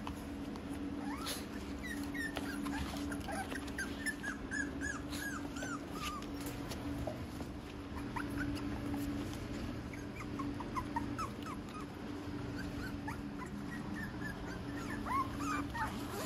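Young Cavalier King Charles spaniel puppies whimpering and squeaking: many short, high, falling cries, in a busy cluster in the first few seconds and again through the second half, over a steady low hum.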